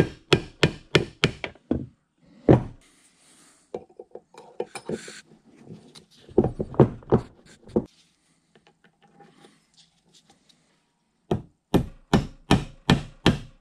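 Hammer tapping a taper pin into the shaft coupler of a Bridgeport 6F milling machine power feed. The taps come in quick runs: about seven at the start, another run midway, and a faster run of about eight near the end, with a few lighter clicks in between.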